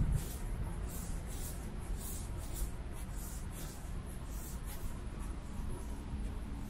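Footsteps of someone walking at a steady pace, shoes scuffing on pavement about twice a second, over a low steady city hum.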